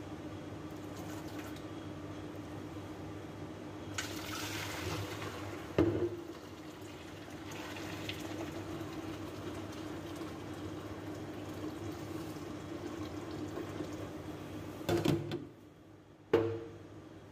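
Kitchen tap running into a stainless steel sink as boiled meat is rinsed in a steel pot, the cooking water poured off. A few sharp clanks of the pot against the sink, about six seconds in and twice near the end.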